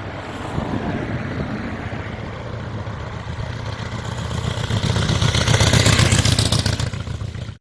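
1911 Indian motorcycle engine running with rapid, even firing pulses, growing louder about five seconds in, then cutting off suddenly.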